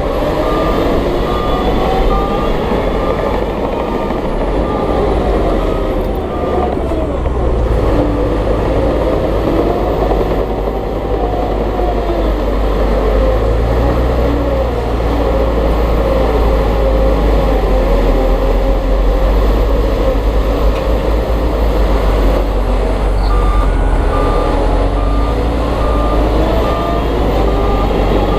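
Heavy earthmoving machinery working: a diesel engine running steadily, its pitch rising and falling with the load. A reversing alarm beeps at about two beeps a second at the start, stops, and starts beeping again near the end.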